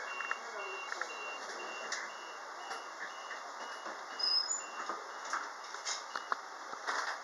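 Door-closing warning beeps of a Queensland Rail SMU 260-series electric train: a steady run of short high beeps, about two a second, that sound while the doors slide shut and stop about six seconds in.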